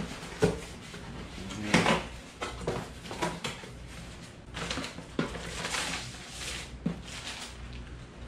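Cardboard boxes being handled and opened: several knocks and scrapes of cardboard, the loudest about two seconds in, then rustling of paper and plastic packing pulled from a small box.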